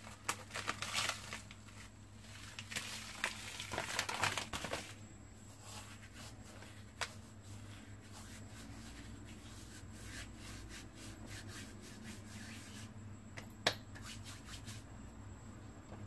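Dried fenugreek leaves (kasuri methi) crushed and rubbed between the palms, a dry crackly rustling that is busiest in the first five seconds, then fainter, with a couple of sharp clicks later on.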